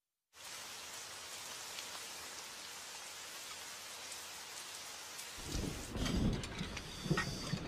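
Steady rain falling, with a low rumble of thunder building up from about five and a half seconds in.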